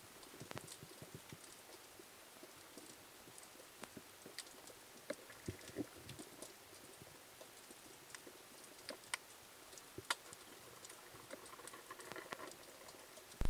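Faint, scattered clicks and soft ticks, irregular and a few a second at most, over a low steady hiss.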